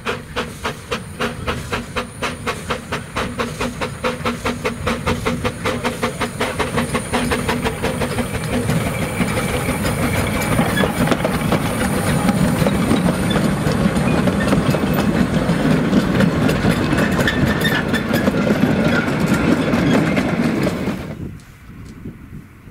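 Narrow-gauge Hunslet 0-4-0 saddle-tank steam locomotive working a train, with sharp exhaust beats at about three to four a second that quicken and grow louder as it approaches. As it passes close, they give way to a loud rush of exhaust and steam with wheels on the rail. The sound cuts off abruptly near the end.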